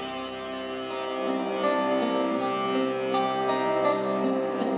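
Live folk-metal band playing an instrumental passage: held melody notes over guitars, with regular drum or cymbal strokes.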